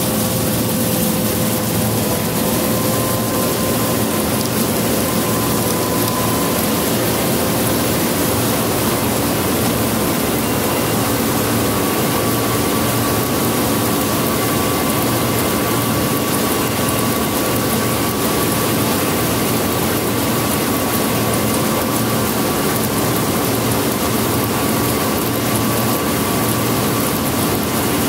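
Combine harvester running steadily as it cuts soybeans: an even engine and machinery drone with a few faint steady tones over it.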